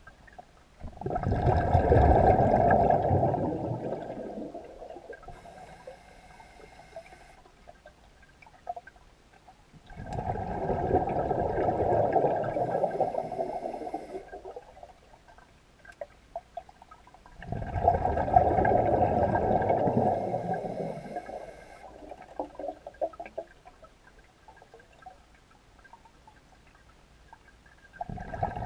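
Scuba regulator breathing heard underwater: exhaled air bubbles burble out in three long bursts about eight seconds apart, with a fourth beginning near the end, and a fainter hiss from the regulator on each inhale in between.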